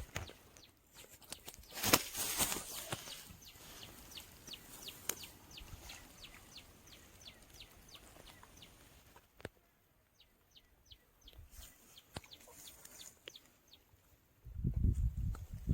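A bird calling over and over with short, high, falling chirps, about three or four a second. A loud rushing noise about two seconds in and low rumbling handling noise near the end.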